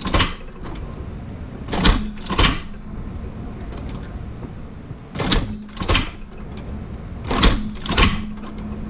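Cowboy Outlaw hand-operated leather sewing machine stitching thick holster leather one stitch at a time. Each stroke of the handle gives a pair of sharp clacks about half a second apart, and the strokes come every two to three seconds.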